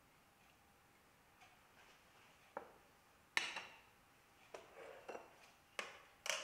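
A metal spoon and a spatula set down on a ceramic plate: a light clink about two and a half seconds in, a louder clatter just after, then several lighter clinks and knocks.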